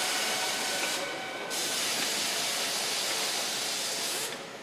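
Compressed air hissing from an overhead pneumatic assembly tool: a burst of about a second, a short break, then a longer burst of nearly three seconds that stops near the end.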